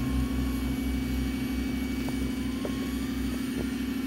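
Rock-crawler buggy's engine running at a steady low speed as it crawls up a steep rock face, a constant hum over a low rumble, with a few faint ticks in the second half.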